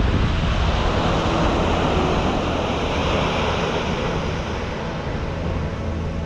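Surf breaking and washing up onto a sandy beach: a steady rush of waves that swells in the first few seconds and eases toward the end.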